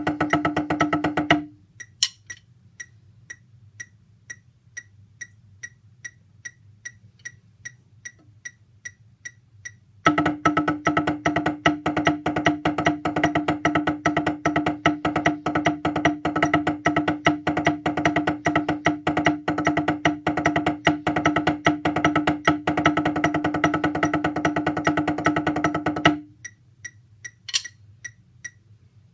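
Drumsticks playing a set of flat wooden pads: long passages of fast, dense strokes over a steady sustained tone, broken by a stretch of sparse, even taps about two a second. A few scattered taps follow near the end.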